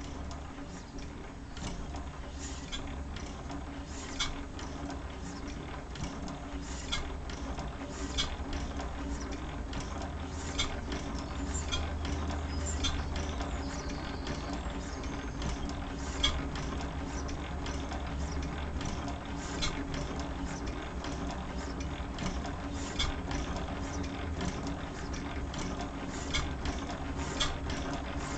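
1911 Gardner No. 1 stationary engine running: a steady low mechanical clatter with sharp clicks at uneven intervals of one to three seconds.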